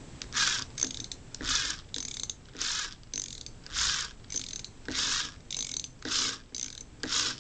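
Black & Decker 2.4-volt cordless screwdriver being hand-cranked by a socket ratchet on its chuck, so that its gearhead motor works as a generator. The gears make a mechanical whir in short bursts, about two a second.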